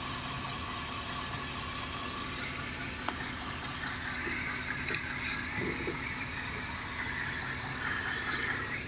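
1993 Chevy van's 350 small-block V8 running steadily near idle, with a few faint clicks. The owner hears a knock in it and a shaking at a certain RPM, which he takes for a balance issue, perhaps the torque converter.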